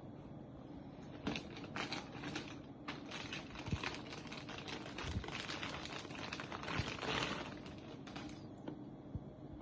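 Packaging being handled: a run of small clicks, taps and rustles, busiest from about a second in until near the end.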